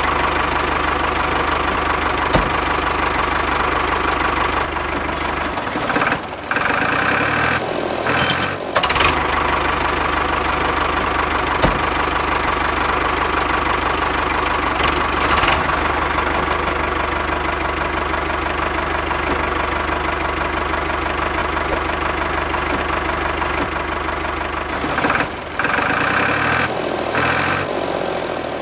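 Tractor engine running steadily at a low, even speed, broken by a few short interruptions.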